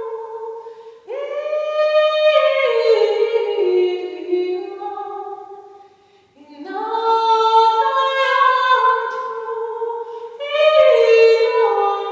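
A woman singing solo and unaccompanied in a church, in phrases of long held notes that glide from one pitch to the next. Short breath pauses fall about a second in, about six seconds in, and near ten and a half seconds in.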